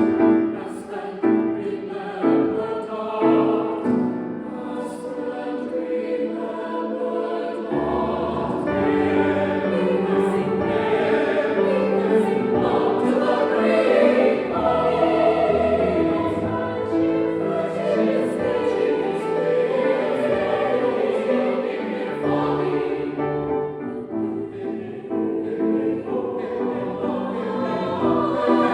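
Choir singing a classical choral piece with piano accompaniment. The sound fills out in the low range about eight seconds in and stays full.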